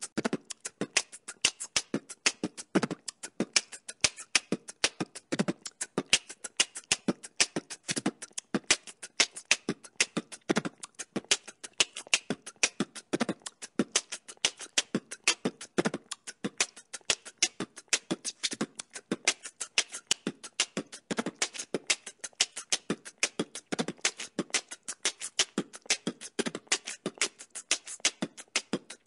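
Background music track made of a fast, clicky beatbox-style percussion beat, with a heavier hit about every two and a half seconds.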